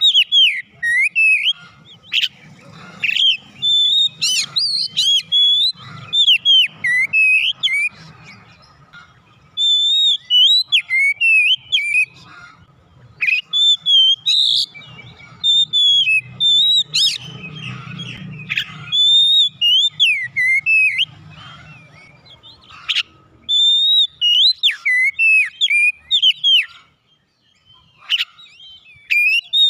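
Oriental magpie-robin singing: loud, varied whistled phrases with quick rising and falling slides. The phrases come in bursts separated by short pauses.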